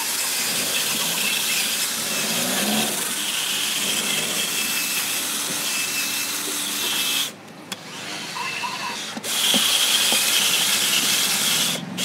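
Cordless drill spinning a toothed scraper bit inside a coconut shell, grinding out the coconut meat in shreds, with a steady motor whine. It runs for about seven seconds, drops off for about two, then runs again.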